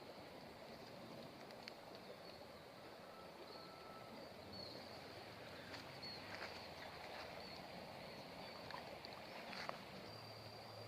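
Faint outdoor waterside ambience: a low steady hiss with a thin, steady high insect tone and a few faint ticks.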